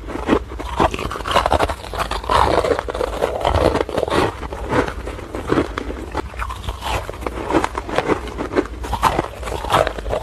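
A person biting and chewing chunks of snowy, frosty ice close to the microphone: a continuous run of crisp crunches, several a second.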